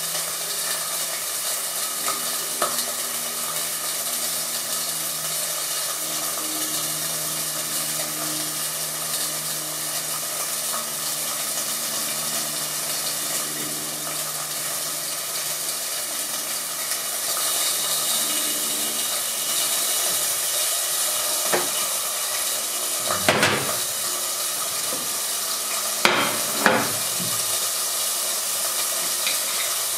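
Food sizzling steadily in a frying pan, with a few sharp clatters of kitchen utensils or dishes in the last third.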